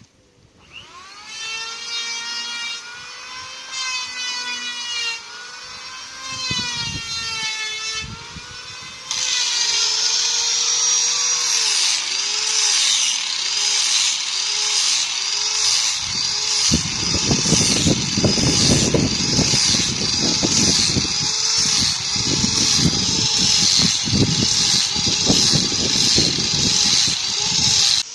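Electric drill motor run in several short bursts, its whine rising and falling, then held on continuously from about nine seconds in with its pitch dipping and recovering about every three quarters of a second. A low, rough churning noise joins it from about seventeen seconds in.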